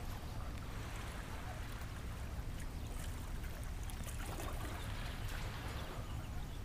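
Wind buffeting the microphone in low, uneven gusts, over the wash of water lapping against the dock.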